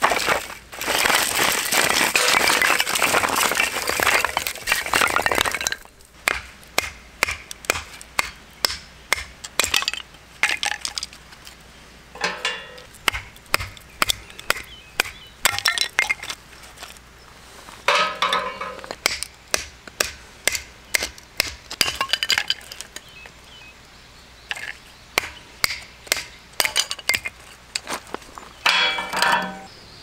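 A mesh bag of firewood being handled and emptied, the logs clattering and rustling for about the first five seconds. Then repeated sharp knocks and cracks as firewood is split into small kindling with a knife struck by a piece of wood, the split sticks clattering down.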